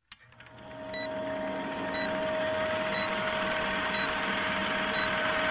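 Old film-projector countdown sound effect: a steady, rapid mechanical clatter and hum from the projector, with a short high beep once every second.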